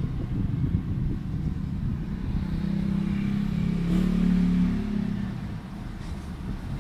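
A passing motor vehicle's engine, its hum swelling about two seconds in and fading about five seconds in, over a steady low rumble.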